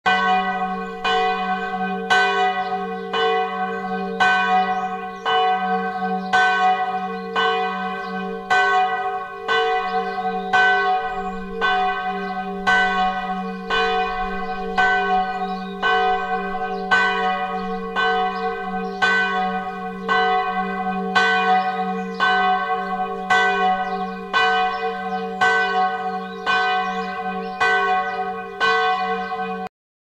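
Church bells ringing in an even, quick rhythm of about two strokes a second, their hum carrying on between strokes. The ringing cuts off abruptly near the end.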